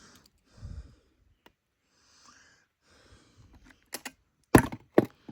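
Handling noises: a soft low thump, faint scuffing, then a few sharp clicks and two loud knocks near the end.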